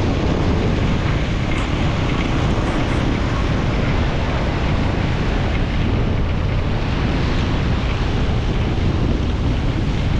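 Steady, loud rushing noise of a vehicle driving through floodwater.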